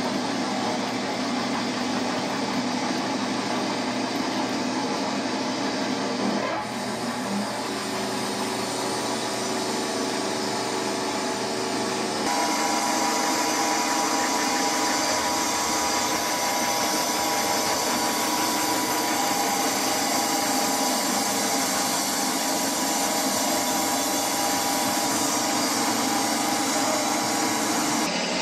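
O scale model trains running on the layout: a steady whirr of electric motors and wheels on the rails. The whirr turns brighter and higher about twelve seconds in.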